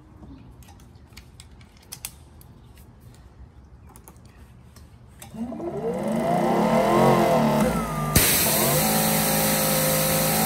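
Small clicks as a nozzle tip is handled and fitted. About five seconds in, a Greenworks Pro GPW3000 electric pressure washer's brushless motor and pump spin up with a rising whine. About eight seconds in, a loud steady hiss of high-pressure water spraying through a 25° nozzle begins over the pump's steady running.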